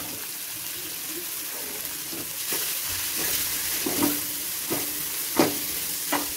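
Chopped onion, tomato, capsicum and grated carrot sizzling in oil in a metal kadai while being stirred and turned with a slotted metal spatula. In the second half the spatula clinks against the pan several times, each strike ringing briefly.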